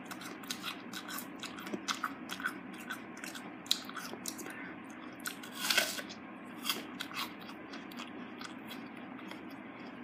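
Crisp crunching of a raw green apple being chewed close to the microphone, with a louder bite a little before six seconds in, followed by more chewing.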